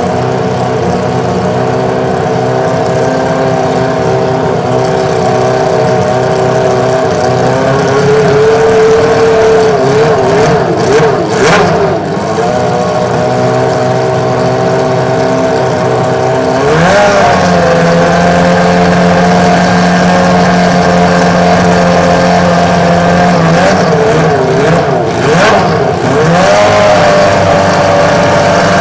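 Benetton B193A Formula One car's Ford Cosworth V8 running with light throttle blips, the revs wavering and twice stepping up to a higher, held engine speed.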